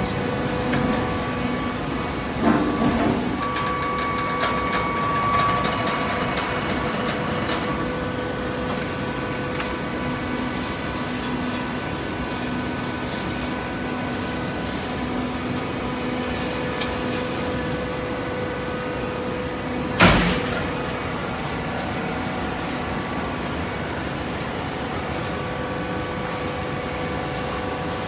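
Automatic horizontal hydraulic baler running: a steady machine hum with a few rattles in the first seconds, and one loud bang about twenty seconds in.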